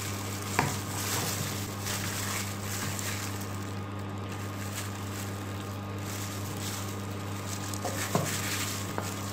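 Steady low hum over hiss, with soft handling noises and a couple of short knocks as a gloved hand rubs raw chicken in a metal bowl.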